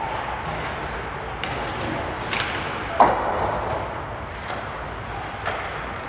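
Ice hockey play: skates scraping the ice under a steady rink hum, with sharp clacks of sticks and puck. The loudest clack comes about three seconds in and rings briefly. A few lighter knocks are scattered through the rest.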